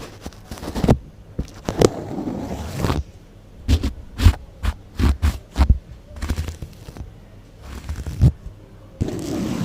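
Close-microphone ASMR brushing and scraping: irregular short sweeps against the mic, with soft low thumps and brief pauses between strokes.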